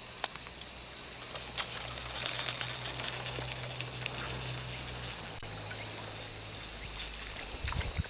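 A steady, high-pitched chorus of insects around the water, with scattered small clicks and a low hum beneath it.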